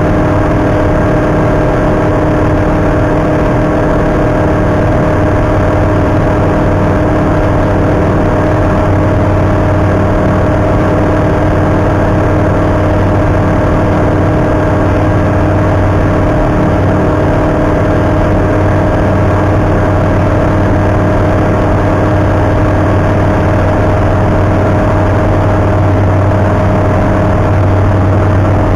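Single-engine light aircraft's Rotax 912 flat-four engine and propeller droning steadily in flight, heard from inside the cockpit. A deep hum underneath grows somewhat stronger in the second half.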